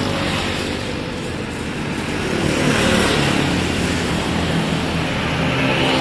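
Street traffic: motor vehicles passing with engine and tyre noise, one swelling past about three seconds in and another near the end.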